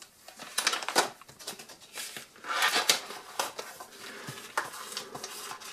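Paper and cardboard being handled: a collector's binder and its printed inserts rustling and sliding, with light taps and clicks, and a longer rustle about halfway through.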